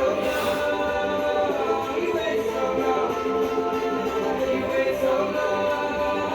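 Background song with sung vocals and harmonies over instrumental accompaniment.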